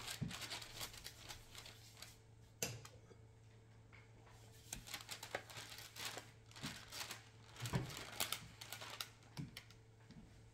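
Faint, scattered clicks, taps and rustles from kitchen utensils being handled, over a steady low hum.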